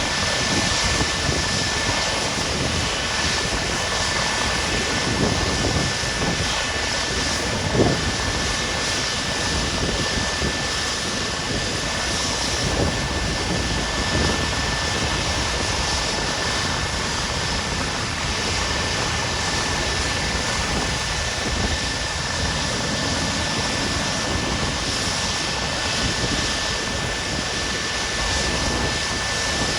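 Rescue helicopter's turbine engine and rotor running steadily, a constant high whine over heavy noise, with one short knock about eight seconds in.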